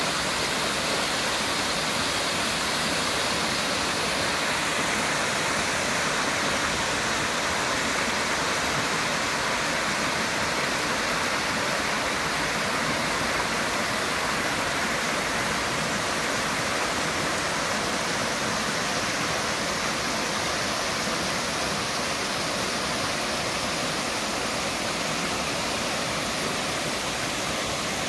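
Small waterfall spilling over rock ledges and cascading down a rocky stream: a steady, even rush of water.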